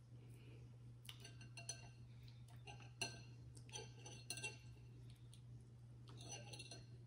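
Light clinks of cutlery against dishes: about half a dozen separate taps, each with a short high ring, over a steady low electrical hum.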